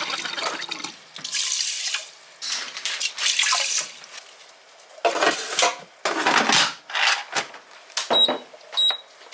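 Water from a kitchen tap running in several bursts, splashing into a pot, as rice is rinsed. Near the end come two short electronic beeps.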